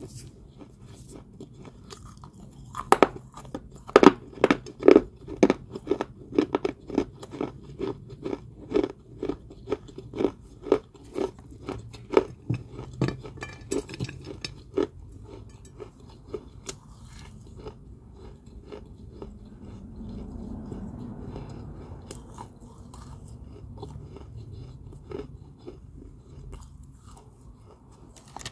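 Crunchy balls of Georgia white kaolin clay being bitten and chewed: a run of sharp crunches, about two a second, from about three seconds in until about fifteen, then softer, quieter chewing.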